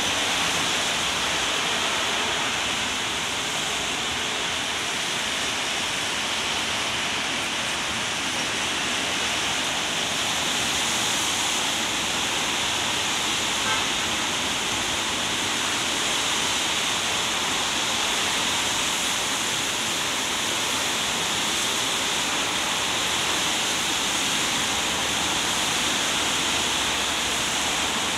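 Steady hiss of rain falling on wet pavement, mixed with the swish of traffic on the wet road.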